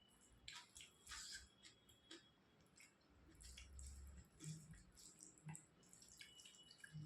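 Faint, wet eating sounds: soft chewing, smacking and squelching of someone eating kadhi chawal, rice in a yogurt curry, with scattered small clicks throughout.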